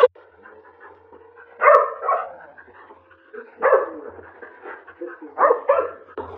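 A dog barking: about five short barks, a pair, then a single bark, then another quick pair near the end.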